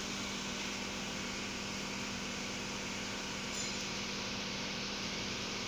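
Steady mechanical background hum with an even hiss, holding level throughout with no distinct knocks or clicks.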